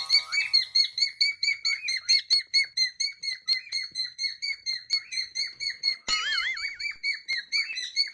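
Cockatiels chirping in a quick, even run of short calls, about three or four a second. About six seconds in, a warbling, wavering whistle breaks in briefly.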